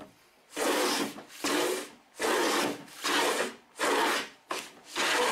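Hand plane pushed in repeated strokes across a bandsawn oak veneer, taking shavings off to remove the saw marks. About six even strokes, a little over one a second.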